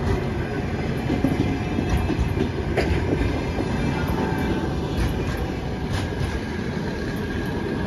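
Russian Railways passenger coaches rolling past at speed, a steady rumble of wheels on rail, with a few sharp clicks as the wheels cross rail joints and a faint wheel squeal.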